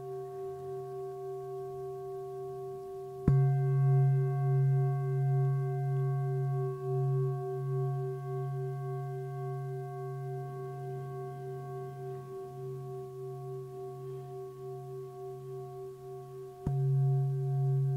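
Singing bowl ringing with a slow pulsing hum; it is struck about three seconds in and again near the end, each strike renewing the ring.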